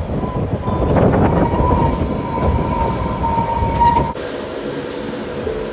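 Train running with a loud rumble and a thin, steady high whine over it. About four seconds in the sound cuts abruptly to a quieter, smoother rush.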